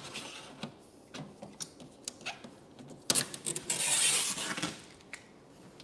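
Hands working adhesive vinyl wrap film on a mini fridge: light taps and rubbing, then about three seconds in a louder crackling rustle of the film lasting about a second and a half, as the trimmed excess vinyl is pulled away.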